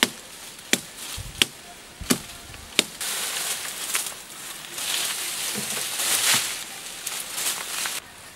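Five sharp chopping strikes of a blade into a sapling's wood, about one every 0.7 seconds, then rustling of leaves and branches as someone pushes through dense brush, cut off abruptly near the end.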